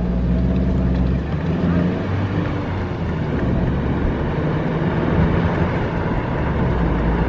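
Car driving along, its engine and road noise heard from inside the cabin through an open side window, the engine's pitch shifting a few times.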